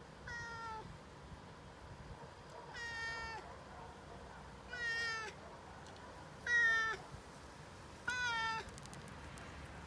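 A cat meowing five times, each call about half a second long and spaced roughly two seconds apart, the fourth the loudest.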